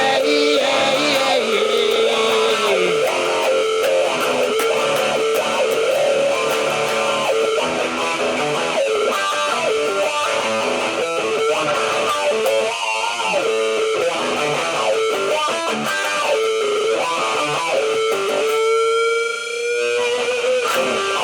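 Guitar-led rock music, an instrumental passage without singing. Near the end the rest of the band drops away briefly under a single held note that bends upward.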